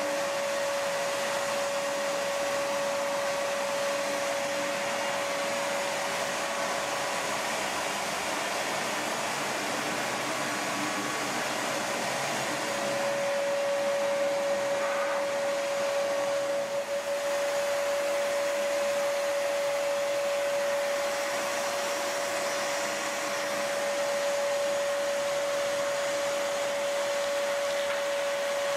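Shop vac running steadily with a constant whine over a rush of air, pulling sawdust through its hose and a cyclone dust separator.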